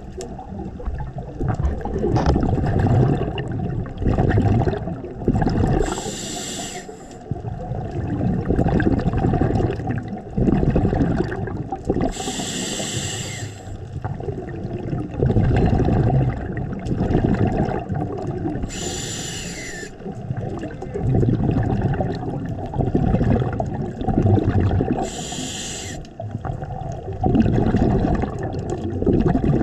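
Scuba diver breathing through a regulator underwater. About every six seconds, four times in all, comes a brief hiss of inhaled air, and between these runs a long, rough bubbling rumble of exhaled air.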